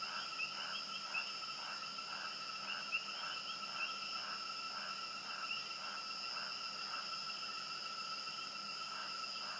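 Night chorus of crickets: steady high ringing trills, with a second caller pulsing about two to three times a second.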